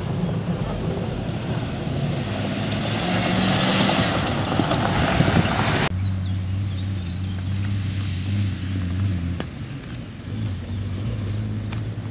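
Jeep 4x4 engines running as the vehicles come down a rough dirt hill track, at first under a broad rushing noise that cuts off abruptly about halfway through. After that a steady low engine hum rises and falls, with a few light knocks.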